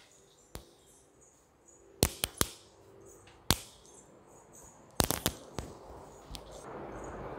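Microphone handling noise: a scatter of sharp knocks and clicks, several close together about two seconds in and again about five seconds in, as the clip-on microphone and phone are moved about. A steady rushing noise comes up near the end.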